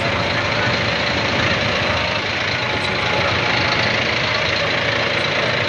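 Steady engine noise of a running vehicle, with a constant hum.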